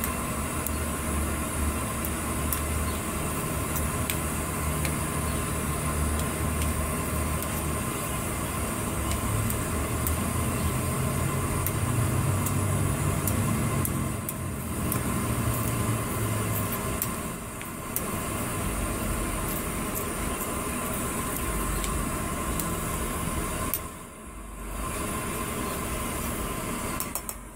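Portable canister gas stove burning with a steady hiss under a pan, while a spoon scrapes and clicks against the pan as the curry is stirred; a low rumble runs underneath.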